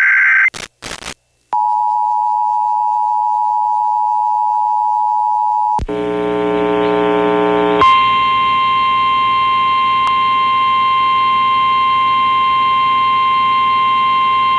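Emergency Alert System activation on FM radio: the end of the digital data header's screech with a few short blips, then the two-tone EAS attention signal held steadily for about four seconds. A brief buzzy tone follows, and about eight seconds in a single steady, slightly higher National Weather Service warning tone begins and holds, with a hiss of relayed audio.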